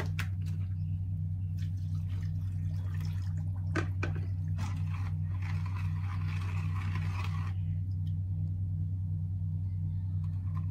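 Hand stirring sugar into water in a container, with liquid swishing and sloshing that is loudest from about five to seven and a half seconds in, and a few light knocks against the container. Under it runs a steady low machine hum with a regular pulse.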